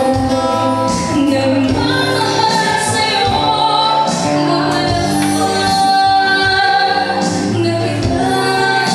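Live acoustic band heard through a PA: a woman singing into a microphone over acoustic guitar accompaniment.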